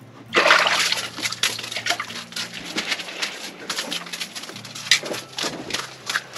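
A small, just-caught fish flopping on the ice floor: an irregular run of sharp slaps and taps.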